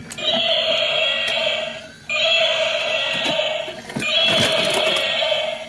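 Battery-operated walking gorilla toy playing the same electronic sound effect from its speaker over and over, each play about two seconds long with a short break between. A few knocks from the toy come about two-thirds of the way through.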